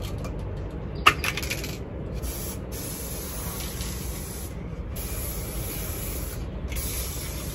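Aerosol can of gold spray paint: a couple of sharp clicks as the can is handled, then the spray hissing in several long bursts with short breaks as the paint goes on.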